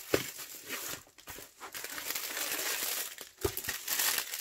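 Plastic packaging of a diamond painting kit crinkling as it is handled. There is a short knock just after the start and another about three and a half seconds in.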